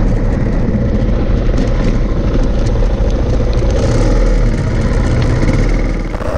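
Suzuki DR dual-sport motorcycle running steadily along a dirt trail, its engine mostly buried under a loud, even rumble of noise on the microphone.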